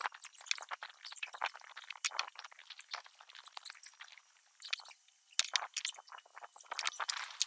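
A 100-grit sanding disc on an angle grinder abrading the edge of a deodar wood board: irregular rasping scrapes in quick, uneven bursts, easing off for about a second a little past the middle.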